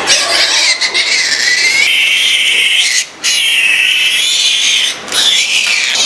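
Piglet screaming in distress while held by hand: long high-pitched squeals, broken by two brief pauses for breath about three and five seconds in.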